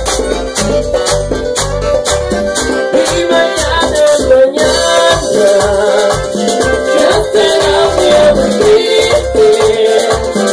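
Live Latin band music: a metal güira scraped in a steady rhythm over a bass line and a pitched melody.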